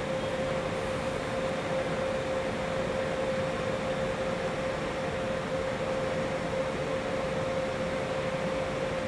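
Two ÖBB class 2070 diesel shunting locomotives running in the station yard: a steady drone with one constant tone over an even hiss.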